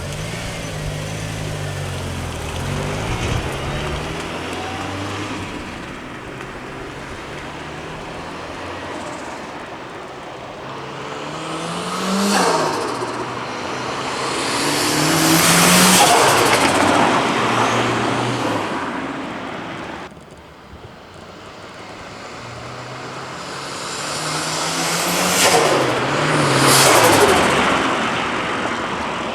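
Turbocharged Mazda Miata 1.6 four-cylinder driven hard through several pulls, its engine pitch rising and falling, loudest about halfway through and again near the end. The blow-off valve is disconnected, so the T25 turbo is left to flutter (compressor surge) when the throttle closes between pulls.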